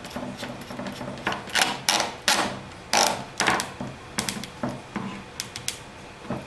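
Irregular sharp metallic clicks and clacks of a Kral Arms 12 gauge semi-auto shotgun's parts, as the end cap is put on the magazine tube to finish reassembly. The loudest clacks come in a cluster from about one and a half to three and a half seconds in, with lighter clicks after.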